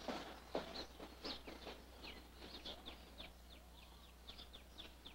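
Small birds chirping faintly: a string of quick, short falling chirps, several a second, fading away near the end. A few soft knocks or rustles come in the first couple of seconds.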